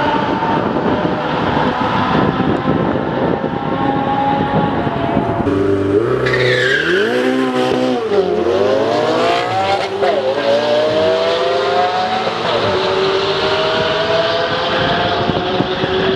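Supercar engines accelerating hard down a drag strip, the pitch climbing steadily. Near the middle, a close launch: the revs rise and drop several times as the car shifts up through the gears, with a short high whine.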